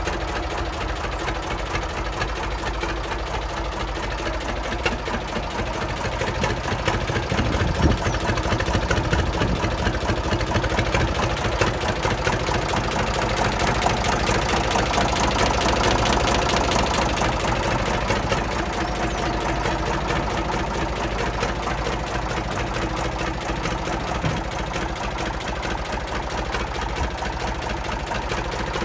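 Deutz A65 tractor's air-cooled diesel engine idling steadily with a fast, even clatter, a little louder in the middle. A brief thump about eight seconds in.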